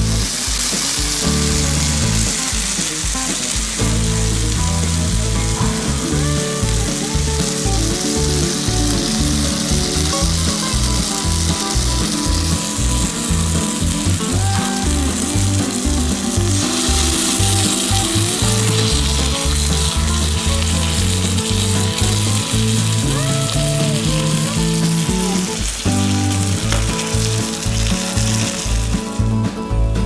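Sirloin steak in black pepper sauce sizzling on a hot cast-iron steak plate, a steady crackling hiss that stops about a second before the end, with background music underneath.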